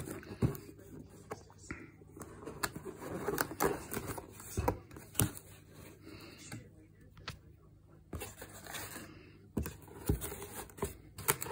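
Hands opening a cardboard box and handling the foam packing inside: irregular scraping and rustling of cardboard with scattered sharp knocks and taps.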